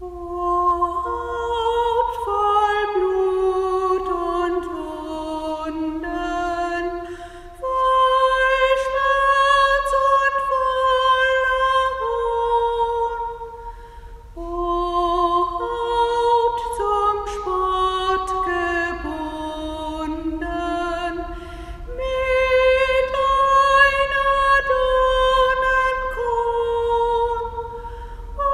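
A woman singing solo, a slow melody of long held notes, with short breaks between phrases about seven and fourteen seconds in.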